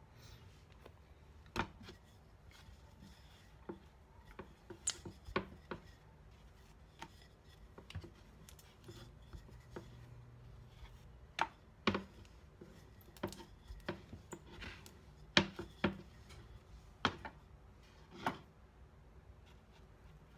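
Wooden rolling pin and hands working bakpia dough on a plastic cutting board: faint rolling, with about a dozen scattered light knocks and taps.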